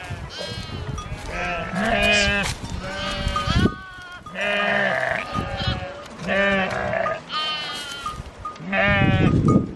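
A flock of sheep bleating, many calls one after another and overlapping. A short burst of low rumbling noise comes near the end.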